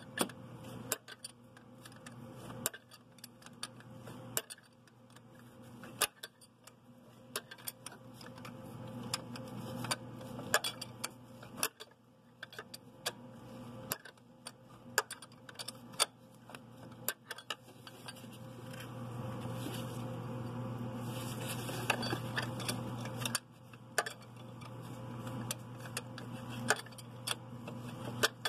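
Irregular metallic clinks of a 17 mm wrench working a turbocharger mounting bolt loose in short strokes, metal tapping on the bolt and manifold, with rustling of plastic sheeting and a steady low hum underneath.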